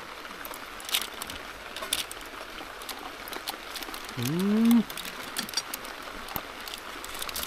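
Steady rushing of a river or stream, with scattered small clicks and taps. About four seconds in comes one short hummed "mmm" that rises and falls, a sound of enjoying food.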